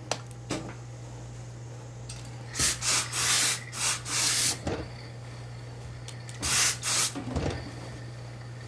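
Hose-fed steam iron hissing in short blasts of steam as it presses suit trousers: a cluster of bursts about two and a half seconds in and another around six and a half seconds, with a steady low hum underneath and light knocks of handling the cloth.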